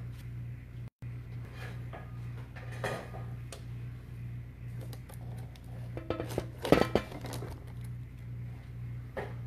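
Metal clinks and clatter from handling a thin nickel-plated metal tray, a few near three seconds in and a louder cluster near seven seconds, over a steady low hum.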